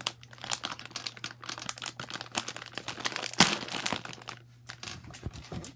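Plastic candy wrappers and packaging crinkling as hands rummage through and handle wrapped candies, in a dense run of irregular crackles with one louder crinkle about three and a half seconds in.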